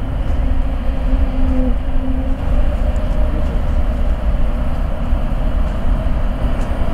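Boeing 777-200LR's twin GE90 turbofans at takeoff thrust, a steady deep rumble as the jet rotates and lifts off.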